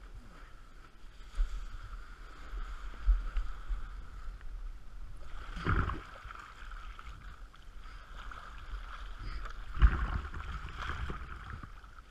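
Wind buffeting the microphone and water rushing and splashing against a kiteboard. There is a loud splash about six seconds in as the rider goes into the water, and another about ten seconds in.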